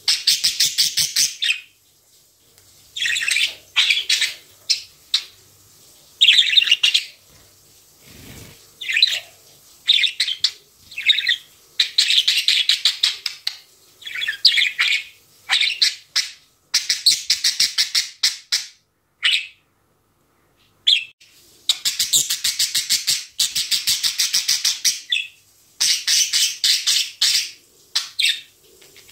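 A budgerigar warbling: fast, rattling chirp phrases of a second or two each, with short pauses between them and a brief silence about two-thirds of the way through.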